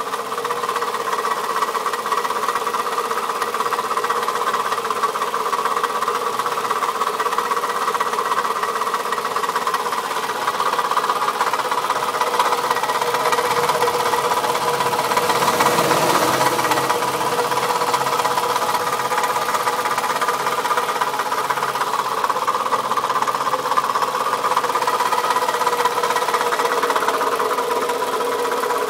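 2004 Toyota Camry engine running with a steady, rapid knock, briefly a little louder around the middle. The owner thinks the knock sounds like a bad piston.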